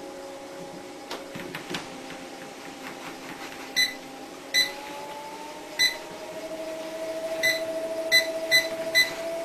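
Electric treadmill motor running with a steady whine that rises in pitch partway through as the belt speeds up, while the console gives seven short beeps, the first few about a second apart and then quicker ones near the end. A few light knocks on the deck about a second in.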